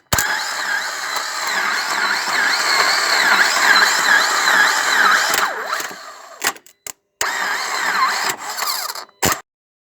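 Renault Mégane II diesel being cranked on a newly replaced starter motor: a harsh, grinding starter noise laced with quick squealing chirps for about five seconds, then a few shorter bursts of cranking that cut off abruptly.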